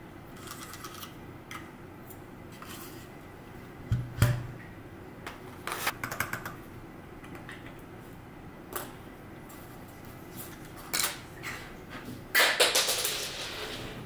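Small plastic clicks and clacks of a mechanical keyboard and its keycaps being handled, with a dull knock about four seconds in. A louder scuffing rustle lasts about a second near the end.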